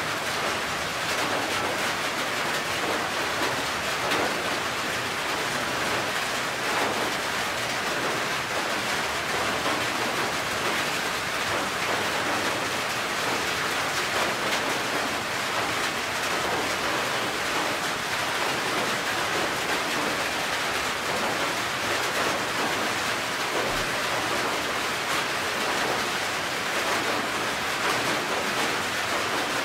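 Steady rain falling on a corrugated metal roof.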